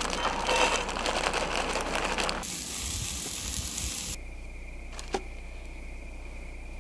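Chopped cauliflower sizzling in a pan on an electric hot plate as it is stirred. The sound changes abruptly twice, and there is a single sharp click about five seconds in.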